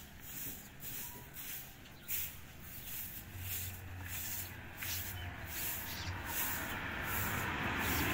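Grass broom sweeping a concrete floor: quick, rhythmic swishing strokes, about two to three a second. A passing vehicle's engine and road noise swell up over the last couple of seconds.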